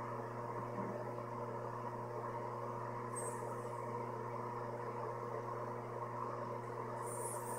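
A steady mechanical hum over a low noise haze, with faint high chirps about three seconds in and again near the end.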